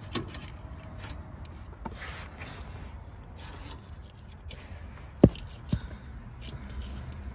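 Metal transmission cooling line scraping and rubbing as it is twisted and worked through the truck's frame, with scattered clicks and a sharp knock about five seconds in.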